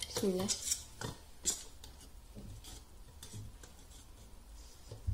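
Metal spoon clinking and scraping against a stainless steel bowl of melted milk chocolate, as a cookie is coated and turned in it. Several sharp clinks come in the first two seconds, then fainter taps and scrapes.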